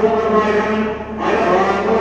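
Men's voices chanting mantras in a steady, held monotone, with a short break for breath about halfway through.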